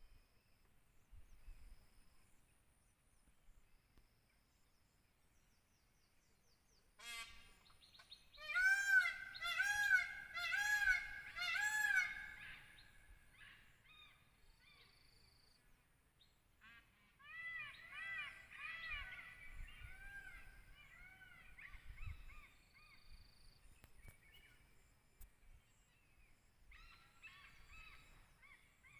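Bird calling in bouts of quick, repeated arched notes. The loudest bout comes about a quarter of the way in and lasts several seconds. A softer bout follows after a pause, and another begins near the end.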